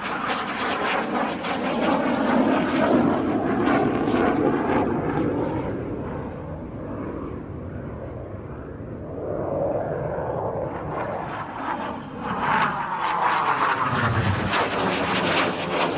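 BAe Hawk T1A jet trainer's Rolls-Royce Turbomeca Adour turbofan heard in display flight. The engine noise eases off as the jet draws away mid-way, then swells again near the end with a sweeping, phasing whoosh as it comes back past.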